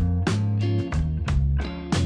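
Background music: a plucked guitar over a bass line, with a steady beat.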